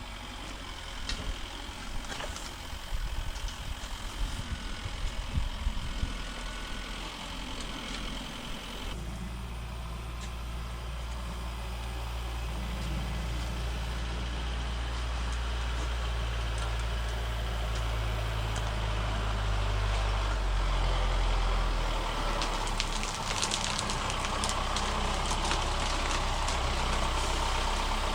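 A vehicle engine idling steadily, coming in about a third of the way through and growing a little louder. Before it there are irregular scraping and knocking sounds.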